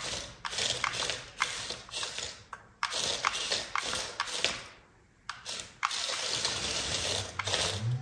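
Small geared mechanism clicking and ratcheting in repeated short runs of about half a second to a second and a half, with brief pauses between and a longer pause about five seconds in.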